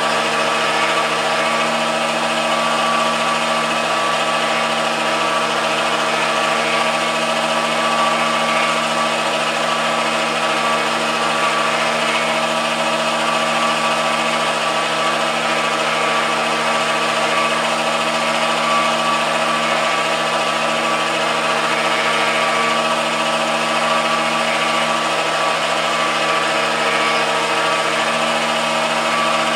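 MDF rose engine lathe running a cutting pass under motor drive: a steady machine whine with several held tones over a hiss, unchanging throughout.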